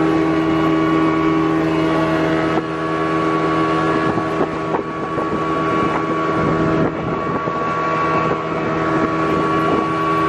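Motorboat engine running steadily with the boat underway.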